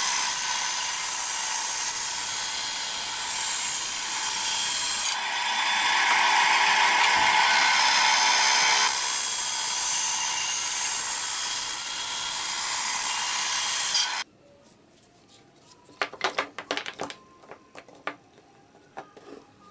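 Benchtop band saw running while a plywood board is fed into the blade, a loud, steady machine noise that gets louder for a few seconds midway. It cuts off suddenly, followed by a few light knocks of wooden pieces set down on a bench.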